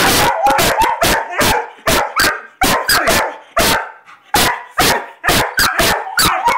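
A Weimaraner barking on the command "speak": a rapid string of loud barks, about three a second.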